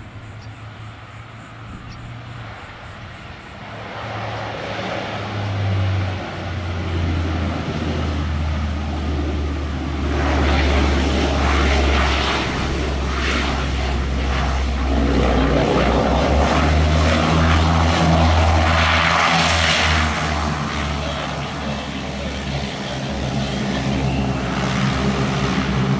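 Airplane engines growing from a low drone to loud over the first several seconds and staying loud, with a steady low hum underneath that shifts in pitch a couple of times.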